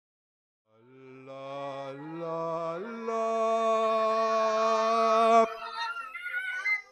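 A man's voice sings a held note that steps up in pitch three times. The last, highest note is the loudest and is held for over two seconds before it cuts off suddenly. Softer, wavering voices follow near the end.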